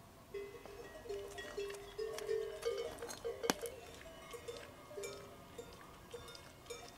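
A large metal livestock bell on a sheep's neck clanking irregularly, each strike ringing briefly. A single sharp click about three and a half seconds in is the loudest moment.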